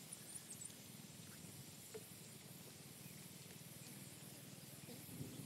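Near silence: faint outdoor ambience with a few light ticks and one small click about two seconds in.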